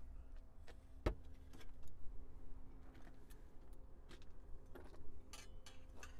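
Scattered light clicks and taps, with one sharper knock about a second in, over a faint low rumble.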